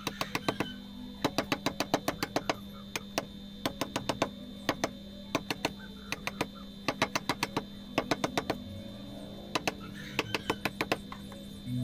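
Wooden mallet striking a steel chisel cutting into a soft natural-stone relief panel: quick runs of sharp taps, several a second, with short pauses between runs. Music plays underneath.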